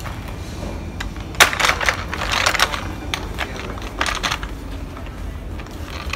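Supermarket background hum with three short bursts of rustling noise, about one and a half, two and a half and four seconds in.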